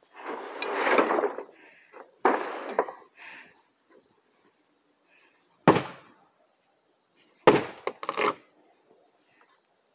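A hatchet striking a plywood wall: two loud, sharp whacks about six and seven and a half seconds in, the second followed by two lighter knocks. Scuffing and rustling noise comes first, in the opening two seconds.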